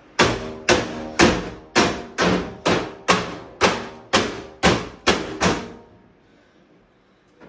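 Hammer blows, about a dozen in a row at roughly two a second, each with a short ringing tail, stopping about five and a half seconds in.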